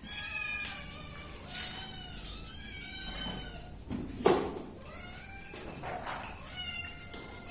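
Cats meowing repeatedly, the calls overlapping at different pitches, with one sharp knock about four seconds in.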